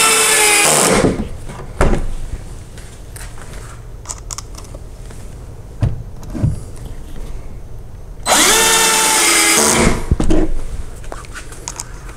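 Black+Decker cordless drill driving mounting screws through a wooden wall cabinet into the wall studs, in two runs of about a second and a half each, one at the start and one about eight seconds in, the motor slowing at the end of each run. Small knocks come between the runs.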